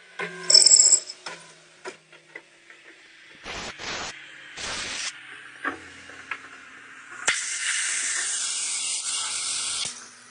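CNC lathe at work: scattered mechanical clicks and short hissing bursts, then a steady hiss lasting about three seconds from about seven seconds in.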